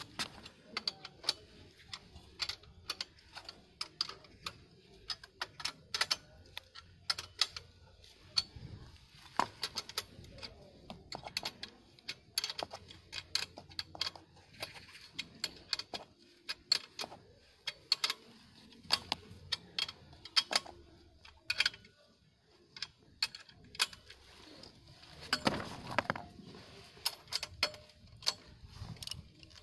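Metal parts and hand tools clinking and clicking irregularly as a tricycle's rear axle is fitted into its frame.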